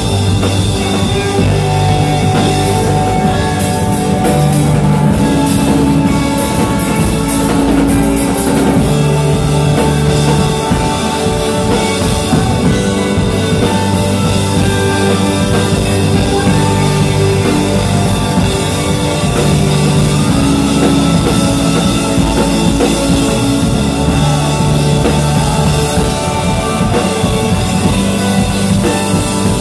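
Live rock band playing: drum kit, electric guitar and keyboards over sustained low notes, loud and continuous.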